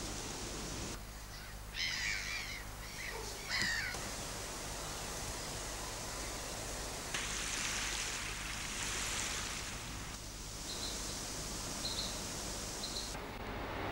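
A crow cawing twice, two harsh calls about two seconds apart, over steady outdoor background noise. Three short high chirps from a small bird come near the end.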